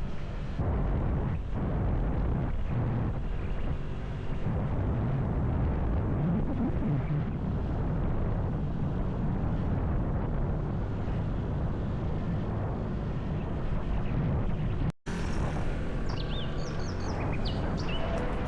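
Heavy wind rushing and buffeting on the microphone of a moving motorcycle, with the engine running underneath. After a sudden cut about 15 seconds in, it gives way to quieter background with birds chirping.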